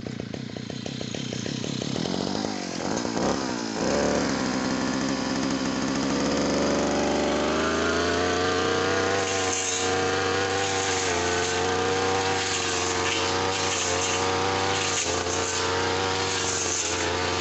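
Small two-stroke engine of a Tanika 438 machine: it catches and runs unevenly at first, then revs up about six seconds in. It holds at high speed with small dips in pitch.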